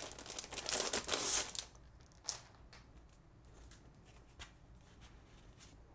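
Plastic sleeve crinkling as a wrapped poster is handled, for about the first second and a half, then a few faint taps as cardboard token sheets are handled.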